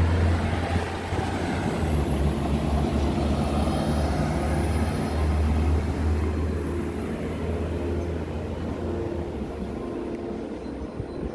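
DB Regio Talent diesel multiple unit pulling away from the station, its engine drone strong at first and fading as it recedes over the last few seconds.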